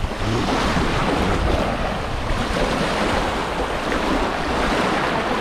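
Sea waves washing onto the shore, a steady surf wash, with wind buffeting the microphone.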